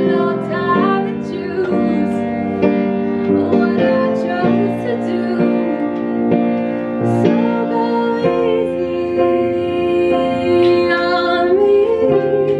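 Piano playing with a voice singing along, the notes held and overlapping.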